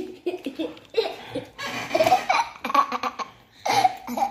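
Children laughing and giggling at the table, in short loud bursts with bits of voice between them.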